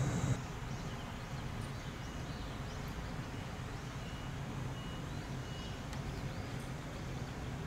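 A loud train rumble cuts off abruptly just after the start, giving way to station platform ambience: a steady low hum with faint high chirps and a few short high tones.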